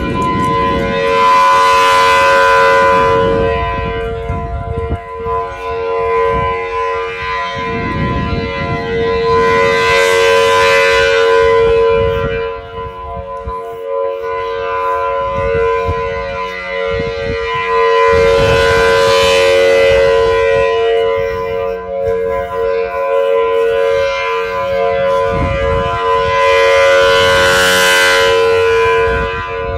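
Federal Signal Thunderbolt outdoor warning siren sounding a test, holding a steady pitch. Its loudness swells and fades about every eight seconds as the rotating horn sweeps past.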